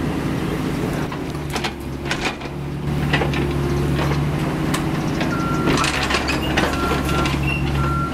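Diesel engine of a CAT 304E CR mini excavator running steadily under hydraulic load, with knocks and scrapes as the bucket digs into dirt and roots. A short high tone sounds a few times near the end.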